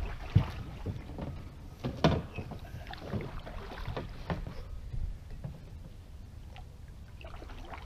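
Knocks and clunks of a paddle being handled against a canoe's hull: a loud knock, a second one about a second and a half later, then a few lighter taps.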